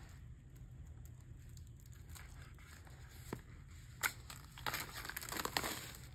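Album packaging being opened: a couple of sharp clicks, then a stretch of plastic and paper crinkling and tearing about five seconds in.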